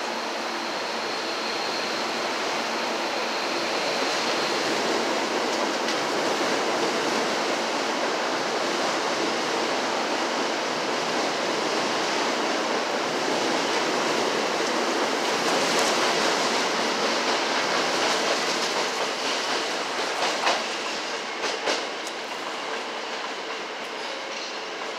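Hankyu Kobe Line electric train pulling out of the platform and running past: a steady rush of wheels and motors that builds, then a few sharp wheel clacks over rail joints near the end as it fades away.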